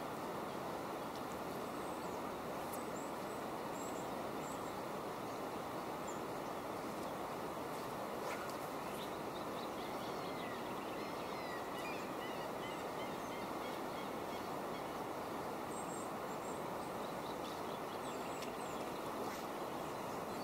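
Steady rushing of a flowing river, even throughout, with a few faint bird calls in the middle and again near the end.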